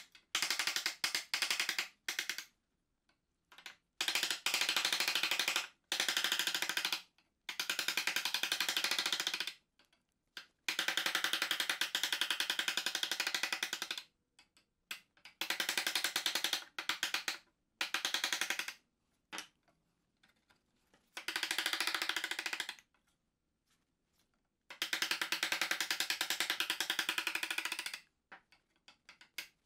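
A hand-pushed bench chisel paring a concave curve into a wooden stool apron held in a vise. Each stroke is a dense run of fast, scratchy clicks lasting one to four seconds, about ten strokes in all with silent pauses between.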